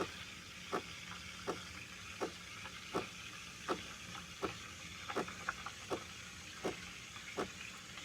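Compact thermoblock espresso machine heating for steam, its pump clicking in short regular pulses about one every three-quarters of a second, with a quick cluster of clicks a little after five seconds in.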